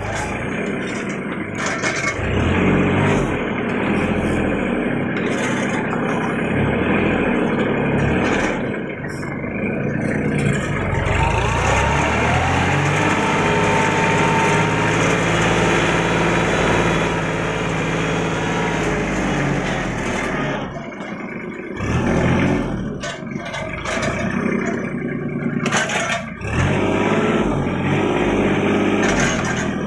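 Kubota L3200 tractor's three-cylinder diesel engine running close by, its speed rising and falling as the crane grabber works and holding steady for several seconds in the middle while the tractor drives. The engine sound dips briefly twice in the last third.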